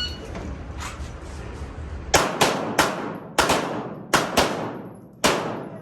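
Pistol shots fired in quick strings, about eight in all, starting about two seconds in, each with an echoing tail.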